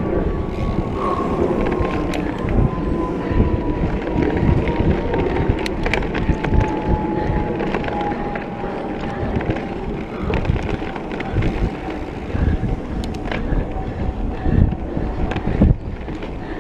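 Mountain bike ridden fast over dirt singletrack: wind rushing on the microphone, tyres on loose dirt, and frequent clacks and rattles from the bike over bumps. A faint thin whine slides slowly down in pitch across the whole stretch.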